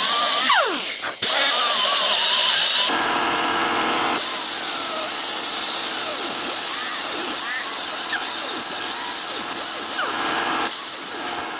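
Handheld power tool grinding on electric motor parts, a loud hissing grind. About half a second in it winds down with a falling pitch, starts again abruptly just after a second, and tapers off near the end.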